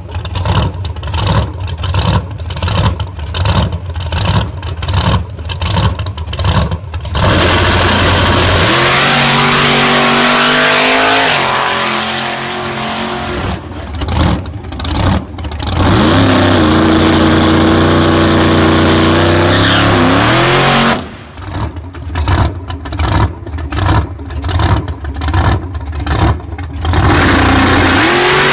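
Supercharged methanol-fuelled big-block V8 of a drag-race Chevy Nova, revved in rapid bursts about two a second, then held at high revs for a few seconds at a time for burnouts, falling back between.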